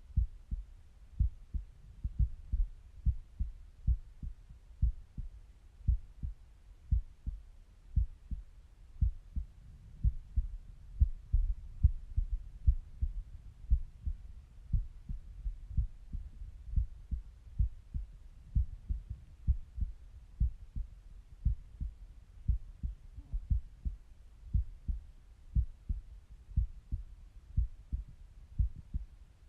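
A resting human heartbeat heard through a stethoscope: steady, regular lub-dub thumps, low and dull.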